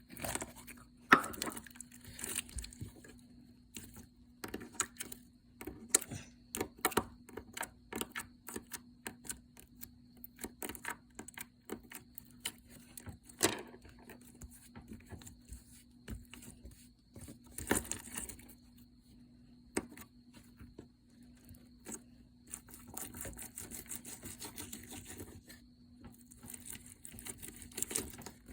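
Slime being squished and stretched by hand, giving irregular sticky clicks, pops and crackles, denser and noisier near the end.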